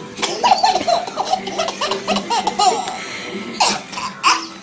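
Baby laughing in a string of short, high-pitched bursts, with a brief pause near the middle.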